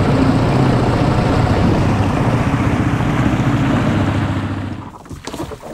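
Small fishing boat's motor running steadily as the boat moves across the water, with the rush of water and wind over it. About five seconds in the motor is cut back and the sound drops away.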